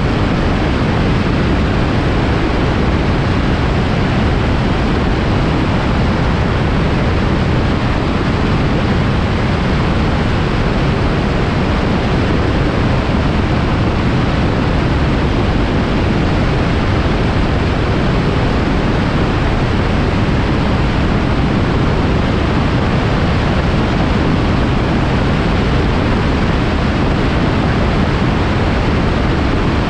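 Microlight aircraft in flight: a loud, steady rush of wind and engine noise, with wind buffeting the microphone.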